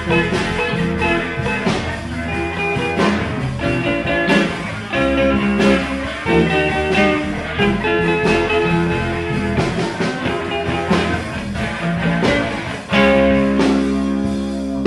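Rock music with guitar playing a steady run of plucked notes.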